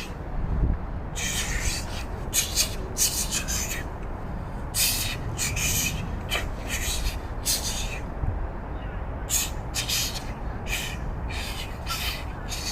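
Repeated rubbing or scraping strokes, coming irregularly about once or twice a second, over a steady low background rumble.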